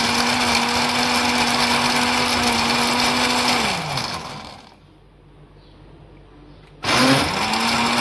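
Electric blender blending falsa berries with sugar and water at full speed, then switched off about three and a half seconds in, its motor winding down. After a pause of about two seconds it is switched on again and spins back up to speed: pulse-blending in short bursts rather than running continuously.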